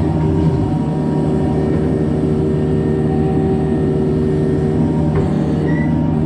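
Heavy equipment's diesel engine running steadily under work, with a single sharp knock about five seconds in and a brief high squeak just after.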